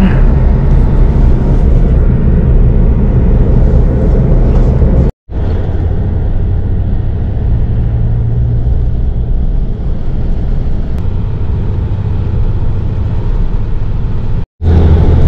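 Bus engine and road noise from inside the cabin, a steady low rumble that cuts out briefly twice.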